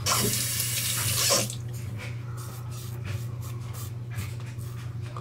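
Tap water running into a sink for about a second and a half, rinsing the safety razor, then shut off. After it come faint short scrapes of a double-edge safety razor's strokes across lathered stubble.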